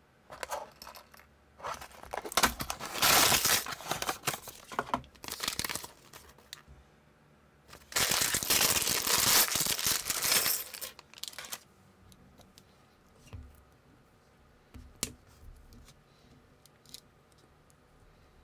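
Packaging being opened: rustling and tearing of a cardboard box and a clear plastic parts bag, loudest around three and nine seconds in. Near the end, a few small clicks of plastic brick parts being handled.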